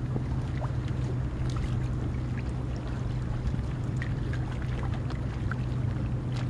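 Water lapping and trickling at a rocky shoreline, with small scattered drips and splashes, over a steady low hum.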